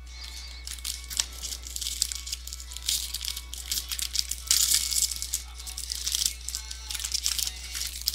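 Crinkling and rustling of a foil baseball-card pack being torn open and its cards handled, in irregular bursts, over a steady low hum.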